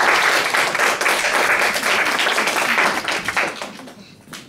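Audience applauding, dense clapping that dies away in the last second or so.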